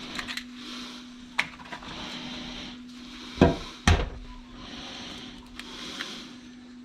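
Eggs being cracked into a pie dish: scattered sharp taps of shells on the dish, with two louder knocks a little past halfway, over a steady low hum.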